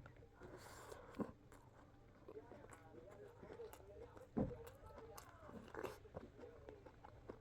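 Close-miked eating: food being bitten and chewed, with scattered crunchy clicks and a louder knock about four and a half seconds in.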